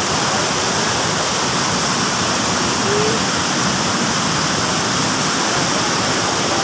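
Mae Ya waterfall: a steady, loud rush of falling water.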